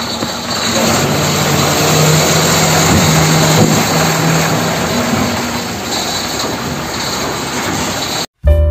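Hard plastic wheels of a toy dump truck rolling and scraping across a rough concrete floor as it is pulled along, a loud steady rumble. It cuts off abruptly near the end and piano music begins.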